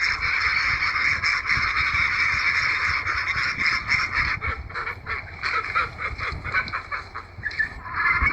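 A flock of geese honking, many calls overlapping into a dense chorus that thins out to more separate honks in the second half.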